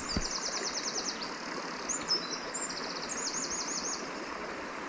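A songbird singing several quick phrases of rapidly repeated high notes, over the steady rush of a shallow river.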